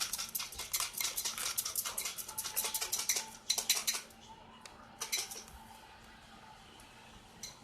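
Rapid crinkling and crunching from Doritos and their bag, dense for about four seconds, then a short burst about a second later and a last crackle near the end.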